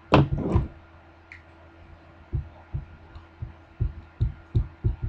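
Dry-erase marker writing on a whiteboard: a run of short, dull knocks, two or three a second, starting about two seconds in as each stroke presses on the board, over a steady low hum. A brief burst of voice comes right at the start.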